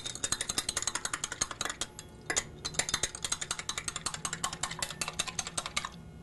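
Metal teaspoon clinking rapidly against the inside of a tall stemmed glass while stirring sugar into lemonade, with a brief break about two seconds in; the clinking stops just before the end.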